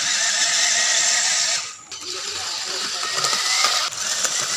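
Six small DC gear motors of a homemade rover robot whining as it drives, with a thin wavering whine over a steady mechanical noise. The sound drops out briefly a little before halfway and changes again near the end.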